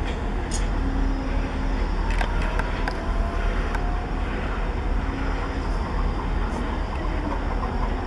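London Overground Class 172 diesel multiple unit running with a steady low rumble. A faint rising whine comes in about a second and a half in and fades by about three seconds, with a few light clicks.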